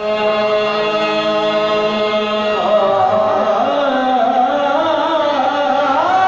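Qawwali: a harmonium holds a steady chord, then about two and a half seconds in a male voice comes in over it, singing a slow line that bends up and down in pitch.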